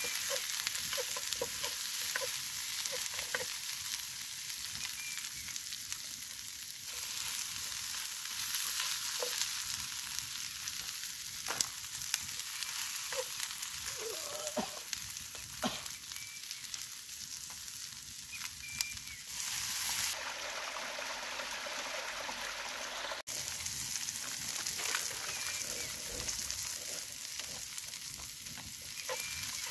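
Chopped vegetables sizzling in a frying pan over a wood fire: a steady hiss, with a spatula clicking and scraping against the pan now and then as they are stirred.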